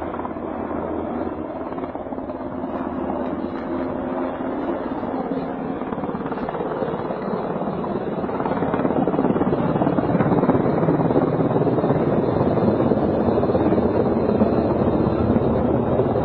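Military helicopter flying near, a steady rotor and engine noise that grows louder about halfway through.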